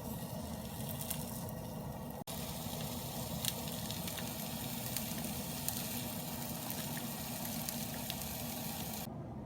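Food sizzling in a frying pan, a steady hiss with scattered sharp crackles of spitting oil.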